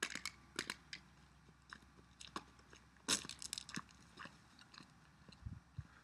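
Irregular crunching and rustling handling noises close to the microphone, a few sharp ones with a cluster about three seconds in.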